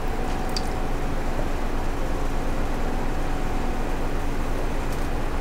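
Steady machine hum with a hiss and a faint held tone through it, the sound of running ventilation or similar equipment. A few faint light ticks about half a second in.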